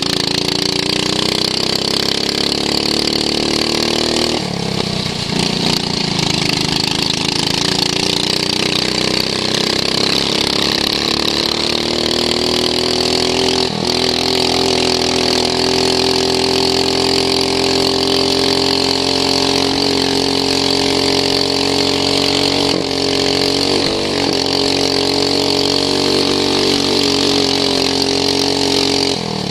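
Racing lawn mower's engine heard onboard under way. Its pitch climbs, drops sharply about four seconds in, then climbs again and holds high and steady, with brief dips around a quarter of a minute in and again a few seconds later.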